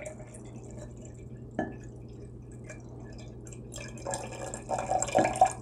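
Water trickling and dripping from a glass measuring cup into a glass jar of water, poured slowly to bring it up to a marked line. The trickle grows louder about four seconds in.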